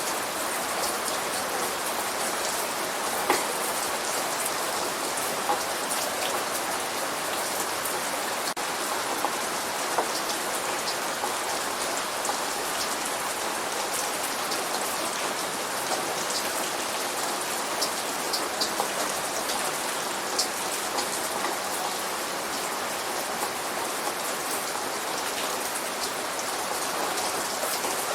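Steady light rain, an even hiss with scattered sharp drips and droplet ticks close by; no thunder.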